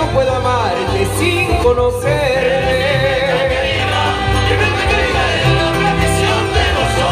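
Mariachi music with the mariachi harp plucked up close: a melody line with slides rides over a steady, rhythmic bass pattern.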